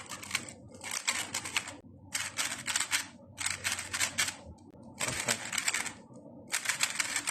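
GAN 12 Maglev 3x3 speedcube being turned in quick bursts of moves. Each burst is a rapid run of light plastic clicks as the layers snap into place, about six bursts with short pauses between.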